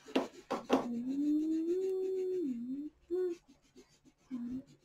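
A child humming a wordless tune in long held notes that slide up and down, with a couple of sharp clicks near the start; the humming breaks into short snatches toward the end.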